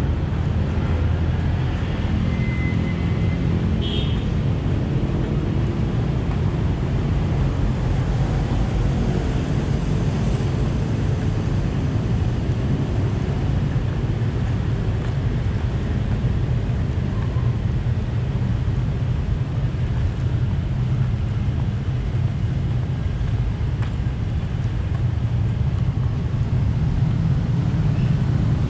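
Steady low rumble of travel in a moving road vehicle, with wind on the microphone.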